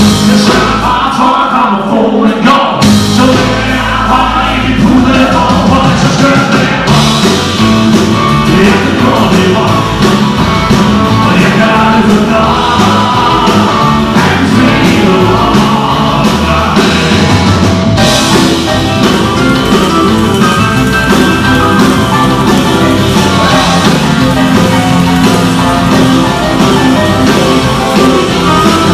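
Live rock-and-roll band playing with singing, loud and continuous; the band's sound fills out about three seconds in.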